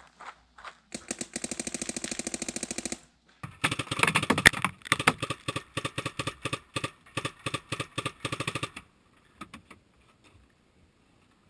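Paintball marker firing rapidly in two bursts: one of about two seconds, then, after a short pause, a louder one of about five seconds. A few scattered shots or pops follow near the end.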